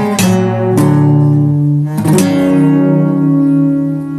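Acoustic guitar music: a few strummed chords, then a final chord about two seconds in, left ringing as the song ends.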